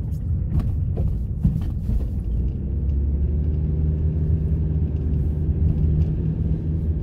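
Car engine and road noise heard inside a moving car's cabin: a steady low rumble with a few light knocks in the first two seconds. From about three seconds in, a steady engine hum comes through.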